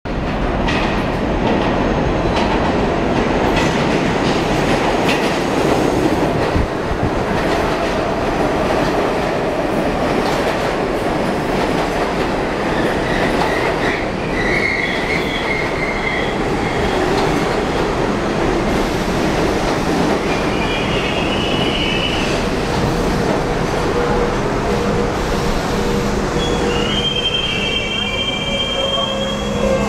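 R42 New York City subway train entering a station and braking to a stop: a loud, steady rumble of steel wheels on rail with clacks over the rail joints. High wheel and brake squeals come and go in the second half and hold steady over the last few seconds as the train stops.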